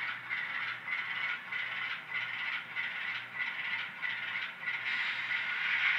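Atlas RS-3 model locomotive with an ESU LokSound decoder running under load with a long train: a steady hissing rattle that swells and dips in an even rhythm, over a faint low hum. The owner puts this noise down to the decoder's back-EMF motor control, not the motor itself.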